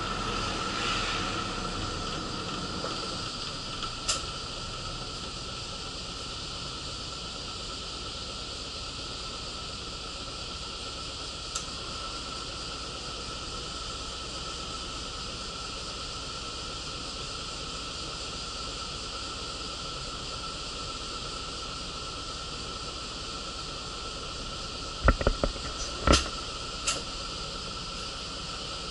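Inside a moving city bus: a steady hiss and running noise with a constant high tone, and a short cluster of sharp knocks and rattles near the end.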